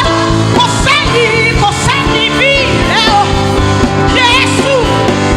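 Live gospel worship music: a woman's voice singing sliding, ornamented runs over sustained keyboard chords.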